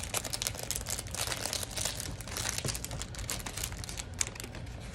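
Clear plastic packaging crinkling as it is handled and pulled off a rolled diamond-painting canvas: a dense, uneven run of small crackles.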